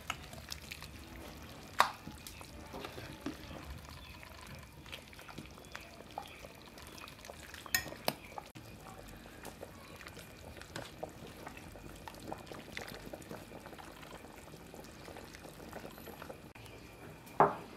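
A metal ladle stirring a large steel pot of braised beef stew that is bubbling at a boil, with a sharp knock of the ladle against the pot about two seconds in and again about eight seconds in.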